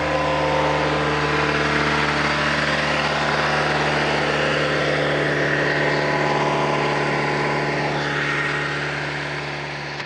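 1995 Jeep Wrangler YJ engine idling steadily at an even pitch after a cold start in below-freezing weather, fading out near the end.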